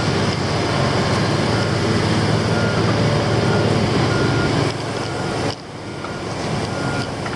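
Heavy construction truck engine running loudly, with a backup alarm beeping about once a second as the vehicle reverses.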